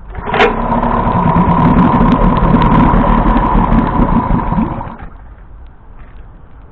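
Tohatsu two-stroke outboard motor starting with a sharp onset and running for about four and a half seconds, with a steady whine over a fast low beat, then stopping about five seconds in.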